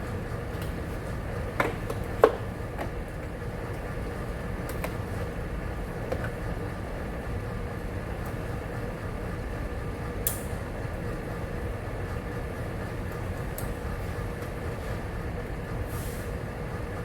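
Steady low hum with a faint constant tone, broken by a few sharp clicks and knocks, the loudest about two seconds in.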